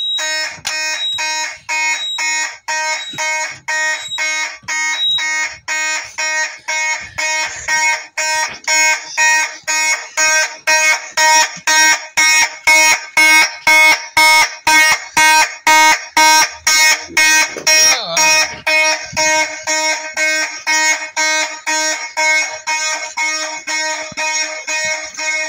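Fire alarm horn sounding loudly in a steady on-off pulse, about two blasts a second, set off from a Simplex 4006 fire alarm control panel. It starts abruptly.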